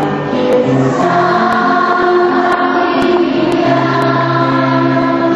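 A choir singing a slow hymn in long held notes.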